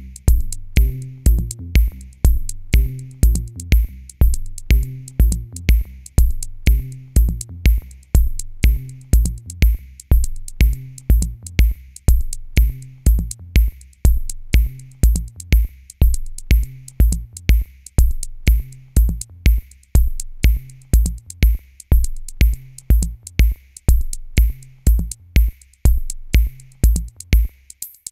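Electronic background music: a steady drum-machine beat over a bass line. The bass drops out near the end, leaving only the beat.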